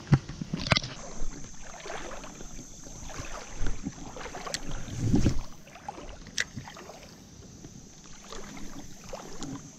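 Water sloshing and splashing, with irregular knocks and a few sharp clicks, and a faint steady high tone underneath.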